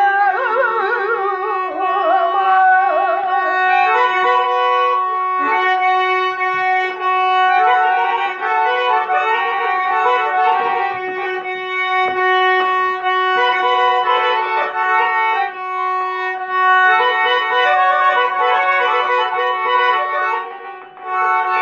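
A garmon, the Azerbaijani button accordion, playing a melody over a held drone note, heard acoustically without a microphone, with light frame-drum strokes. For the first three seconds or so a singer's wavering, ornamented voice trails off over it.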